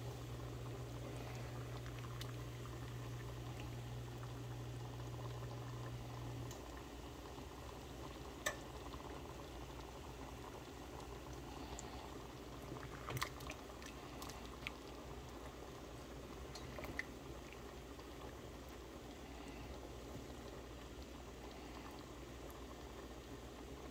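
Thick curry sauce simmering and bubbling in a stainless steel pan, with a few sharp clicks of a plastic spatula against the pan. A steady low hum runs under it for the first six seconds or so, then stops.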